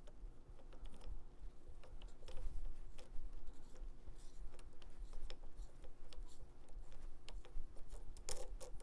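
Scattered light clicks and taps of small metal baitcaster reel parts being handled as the star drag is worked onto a burred, cross-threaded shaft, with a quick cluster of sharper clicks near the end.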